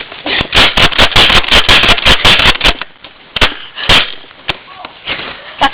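A rapid burst of sharp cracks and clicks from an airsoft shootout with spring shotguns, densest over the first couple of seconds, then a few single cracks spaced out toward the end.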